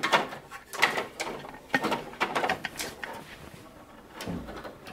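Cables and the metal bracket of a 5.25-inch USB front-panel hub knocking and scraping against a PC case's drive bay as the cables are fed through: a run of short, irregular clicks and rustles with a duller knock near the end.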